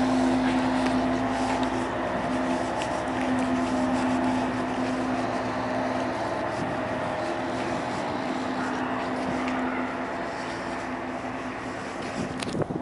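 Car ferry underway, its engines and machinery giving a steady drone with a held low hum over a broad rushing noise, slowly easing off toward the end.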